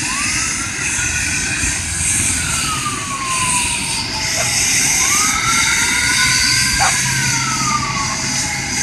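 Emergency vehicle siren wailing, its pitch rising slowly and falling again twice, over steady background noise.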